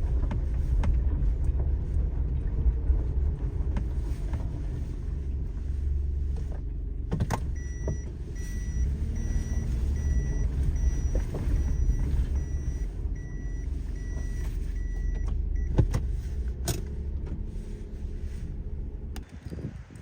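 Daihatsu Terios Kid running along a forest road: a steady low engine and road rumble, with a few sharp knocks. In the middle, an evenly repeated electronic beep sounds for about eight seconds.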